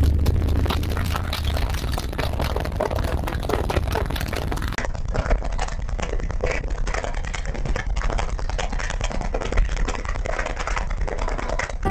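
Car-audio subwoofers (two 18-inch woofers) pushing deep bass inside the car's cabin. The low rumble is under a dense crackling and rattling, as the bass pressure shakes the interior and overloads the microphone.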